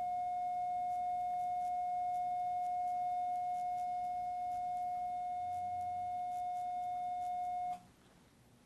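Elman radiofrequency surgery unit sounding its steady activation tone, one held mid-pitched beep while the wire loop electrode is energized and cutting. The tone cuts off abruptly near the end as the current is switched off.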